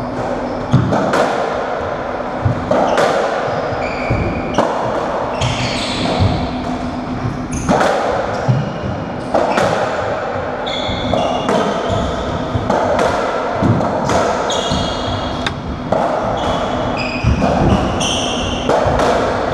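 Racketball doubles rally in an enclosed squash court: the hollow ball struck by rackets and hitting the walls and floor, a sharp echoing pop every second or so, with short high squeaks of court shoes on the wooden floor between the shots.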